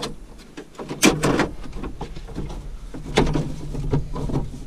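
Metal clunks and scraping as a tractor's gear-shift linkage is worked back into line: a knock near the start, a loud cluster of knocks about a second in and another about three seconds in, over a low steady hum.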